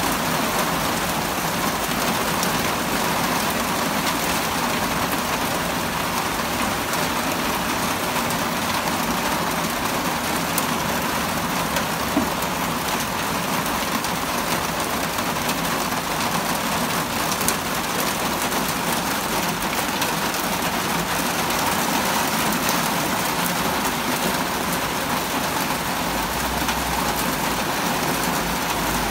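Heavy rain pouring steadily, a dense, even hiss of rain falling on pavement and parked cars. A couple of single sharp taps stand out, about twelve and seventeen seconds in.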